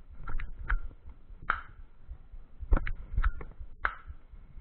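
Airsoft pistol being handled: about nine sharp, irregularly spaced clicks and clacks from its slide and parts, several with a brief ring.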